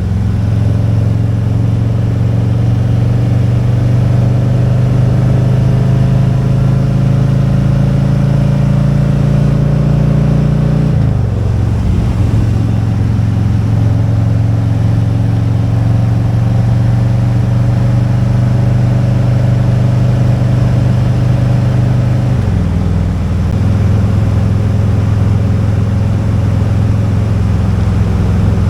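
Motorcycle engine running steadily under way, with wind and road noise; the engine note steps down twice, about a third of the way in and again about three quarters of the way through.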